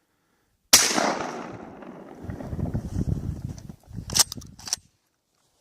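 A single 12-gauge shot from an Ithaca 37 Featherlite pump shotgun, loud and sharp, echoing away over the next few seconds. About three and a half seconds later come two quick metallic clacks half a second apart, the pump being worked back and forward to chamber the next shell.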